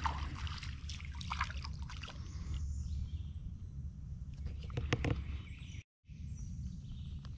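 A small sunfish (a stumpknocker) splashing at the water's surface as it is reeled in on an ultralight spinning rod, in scattered splashes during the first two seconds and again around five seconds, over a steady low rumble. Faint bird calls come in during the second half.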